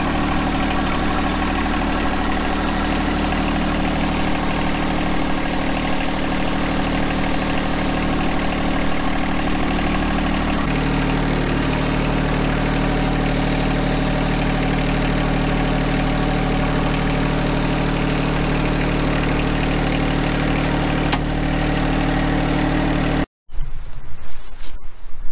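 John Deere 1025R compact tractor's three-cylinder diesel engine running steadily while working a front push blade through dirt; its note steps up slightly about ten and a half seconds in. Near the end the engine cuts off abruptly and crickets chirp.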